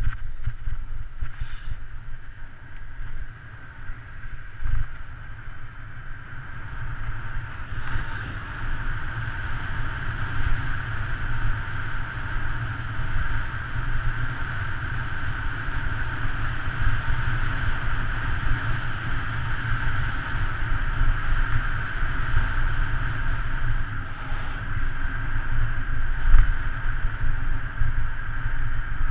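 Wind buffeting the microphone of a road bicycle descending at speed: a steady low rumble, with a constant mid-pitched hiss of tyre and road noise above it.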